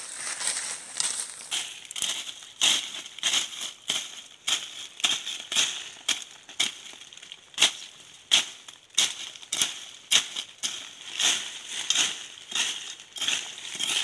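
A small hand blade scraping and chopping at dry grass, leaves and dirt to clear a patch of ground, in repeated uneven strokes about twice a second.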